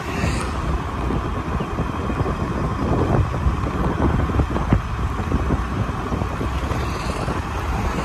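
Wind buffeting the microphone of a moving two-wheeler, a steady low rushing that flutters unevenly, over the road and traffic noise of the ride.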